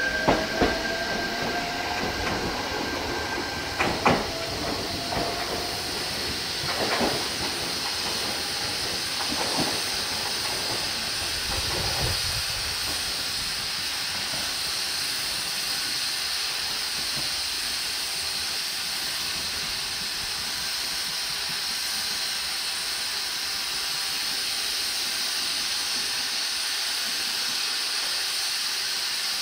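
Shinano Railway SR1 series electric train pulling out, with a rising whine from its drive and sharp knocks from its wheels over rail joints during the first dozen seconds. After that a steady hiss carries on.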